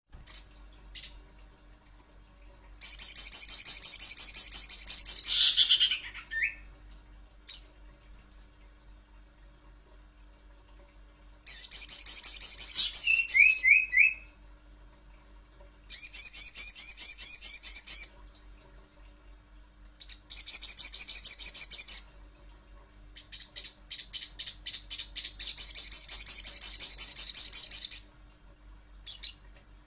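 Crimson sunbird (sogon, sogok ontong) singing: five bursts of rapid, high-pitched trilling, each two to five seconds long, with short single calls in the gaps between.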